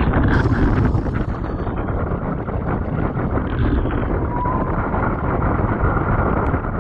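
Wind buffeting the microphone of a GoPro mounted on a windfoil board, mixed with water rushing and splashing past the board as it rises onto its hydrofoil. A brief hiss of spray comes about half a second in.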